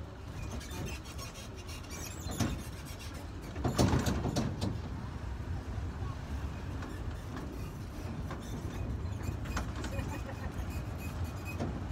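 Steady low rumble of an open-sided tourist road train driving along, with road and wind noise, and a louder burst of noise about four seconds in.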